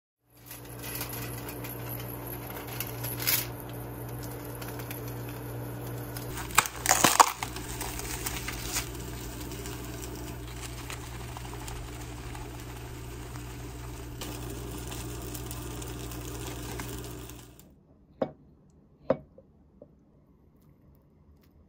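Clicks and clatter of a plastic natto pack and a glass bowl being handled, loudest about seven seconds in, over a steady low electrical hum. The hum cuts off near the end, leaving a quieter stretch with two soft ticks.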